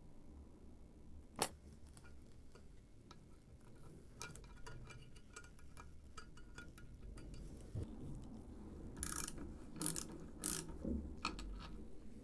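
A sharp metallic click as a countersunk steel screw is set into the cast-iron vise base with tweezers. Then quiet ticking and a few short scraping bursts as the screw is driven in from underneath with a screwdriver.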